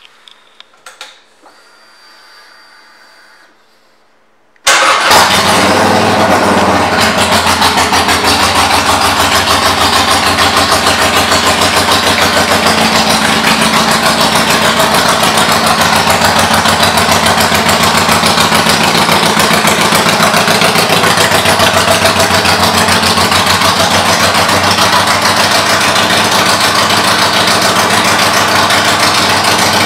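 A few faint clicks, then about five seconds in the 2020 Harley-Davidson Iron 883's air-cooled 883 cc V-twin fires up through Vance & Hines aftermarket pipes. It settles straight into a steady, loud idle.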